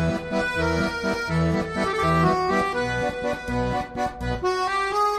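Background accordion music with a melody over a steady, regular bass beat.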